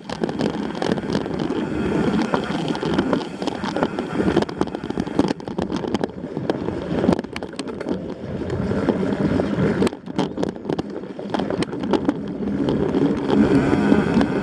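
Rumbling ride noise with wind buffeting the microphone, overlaid with frequent sharp rattles and clicks, as the rider moves fast along a rough mountain trail.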